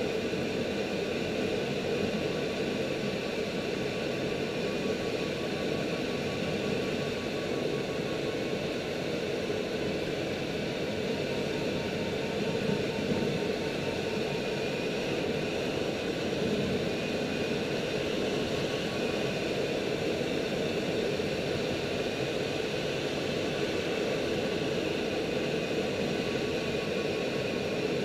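Steady rushing airflow in the cockpit of a 304S Shark sailplane in flight, with a faint high tone that wavers slowly in pitch.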